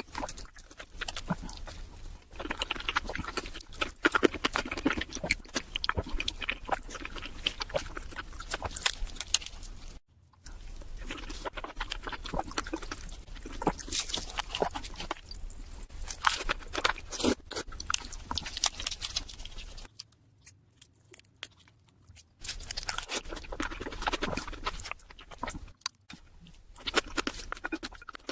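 Close-miked eating of Korean marinated raw crab: wet chewing, smacking and crunching of crab shell in dense clicks. It breaks off briefly about a third of the way in and goes near-quiet for about two seconds past two-thirds.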